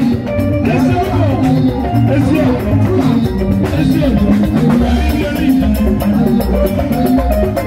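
Live band playing with a steady drumbeat: electric guitar, keyboard, drum kit and hand drums, with a man singing into a microphone.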